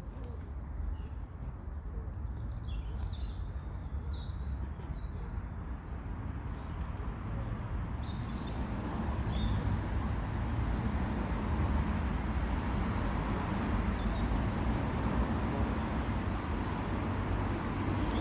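Steady low rumbling outdoor background noise, growing a little louder partway through, with scattered short, high-pitched bird chirps, most of them in the first half.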